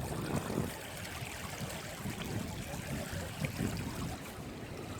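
Small shallow river running steadily, with gusts of wind buffeting the microphone.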